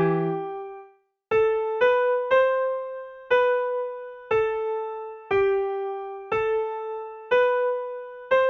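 Background music: an electric piano plays a slow melody of single notes, each struck and left to fade. A low chord sounds at the start, then there is a brief silence before the melody begins.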